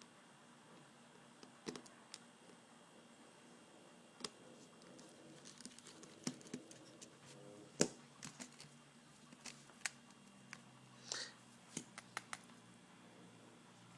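Scattered light clicks and ticks of a small Torx screwdriver and tiny screws against a Nokia N86 phone's casing as the small screws are worked out, with a brief scrape about 11 seconds in.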